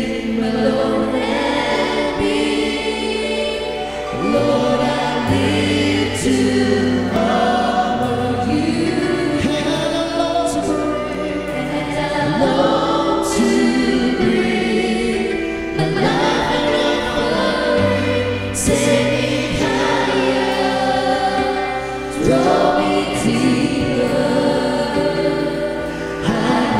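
Live worship band: a group of singers on handheld microphones singing a Christian song together in harmony, with long held notes, backed by a Yamaha electronic keyboard and violin.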